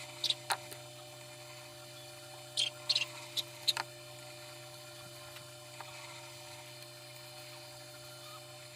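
Steady electric hum, most likely the electric fan's motor running. A handful of light clicks and taps come in the first four seconds, then the hum goes on alone.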